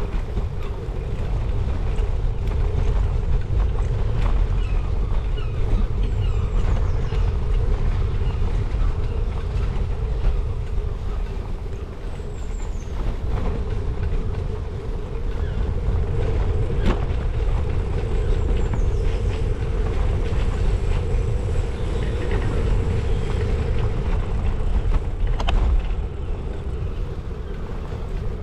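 Steady low rumble of wind buffeting the microphone and road noise from a bicycle being ridden over block paving and then tarmac.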